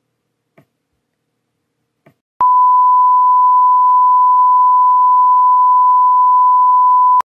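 Television colour-bar test tone: a single steady 1 kHz beep that starts suddenly a little over two seconds in and cuts off sharply just before the end, after two faint clicks.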